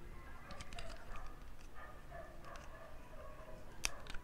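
Small plastic clicks and taps as a Transformers G1 Conehead jet figure is handled and its parts moved, with one sharp snap near the end.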